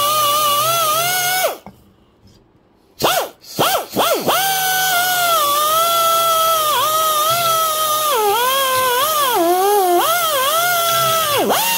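Hand-held rotary tool spinning a wire brush against the corroded aluminium crankcase of a Homelite chainsaw, a high, steady whine. It stops about a second and a half in, blips on and off a few times, then runs again, its pitch dipping as the brush is pressed into the bearing bore.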